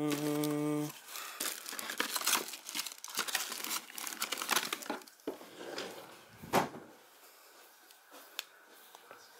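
Hands rummaging through a drawer of medicine boxes and packets: crinkling and rustling of cardboard and plastic packaging with small knocks, and one sharper click about six and a half seconds in. A steady held tone ends about a second in.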